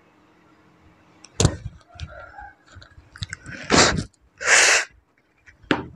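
A person's sharp breaths and a short throaty sound, then a half-second hissing exhale, with small clicks and rustles between. This is the breathing of a patient being taken over by a summoned spirit.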